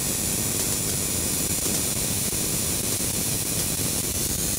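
High-voltage arc crackling continuously at the wire and cap of a foil-wrapped saltwater bottle capacitor, heard as a dense, even static-like hiss.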